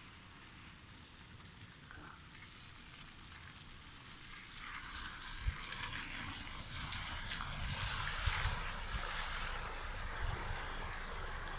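Heavy rain pouring down, swelling louder about four seconds in, with wind buffeting the microphone in low thumps.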